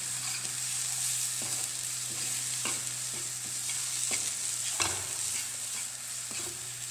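Metal spoon scraping and tapping in a non-stick frying pan as a thick onion and spice paste is stirred, over a steady sizzle of frying oil, with one sharper scrape near the end. The onion masala is being fried down until it leaves the pan.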